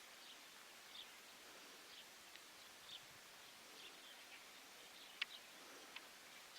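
Near silence: quiet outdoor ambience with faint, short, high chirps about once a second, from birds or insects.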